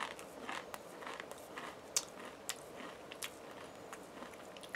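A person chewing Pringles potato crisps with the mouth closed: a run of short, irregular crunches, one sharper crunch about two seconds in.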